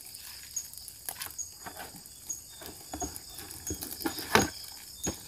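Scattered irregular knocks and rustles, with one louder knock about four seconds in, over a faint high insect chirp repeating about once a second.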